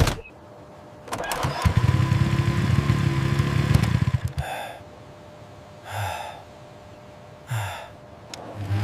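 A small motor scooter engine starts and runs with a low hum for about three seconds, then cuts out. Three short separate sounds follow about a second and a half apart.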